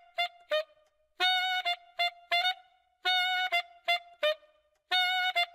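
A wind instrument blown through a mouthpiece plays the same short figure over and over, about every two seconds: a held note followed by two short blasts.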